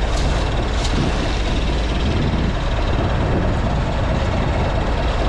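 Fishing boat's engine running with a steady low rumble, mixed with wind on the microphone; a couple of short clicks in the first second.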